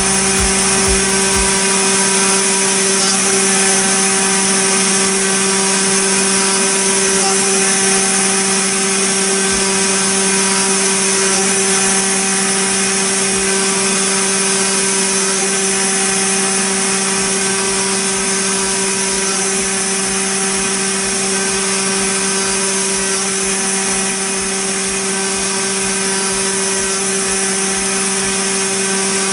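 CNC router spindle milling a brass plate: a steady high machine whine of fixed tones over the continuous hiss of the cutter working the metal.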